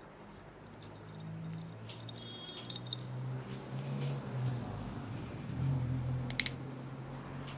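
Barber's hands working over the head and neck during a head massage, with a few sharp cracks or slaps.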